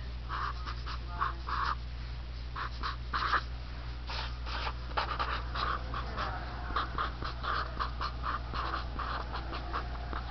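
Felt-tip marker squeaking and scratching across paper in short, irregular strokes as letters are written, over a steady low hum.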